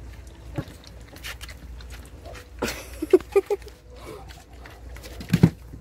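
Several young German shepherd cross puppies lapping and slurping milk from a plastic bowl: a run of quick wet clicks and smacks. About three seconds in come three short squeaky sounds in quick succession, and near the end a dull knock.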